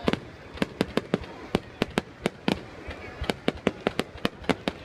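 Fireworks going off in rapid, irregular succession, with sharp bangs and pops coming about five or six times a second.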